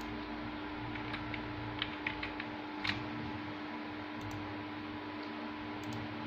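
A run of computer keyboard and mouse clicks, quick taps between about one and three seconds in and two fainter ones later, over a steady hum.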